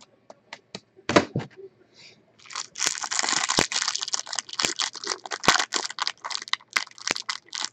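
A few light clicks and taps, then from about two seconds in the continuous crinkling and tearing of a trading-card pack's wrapping being torn open and handled.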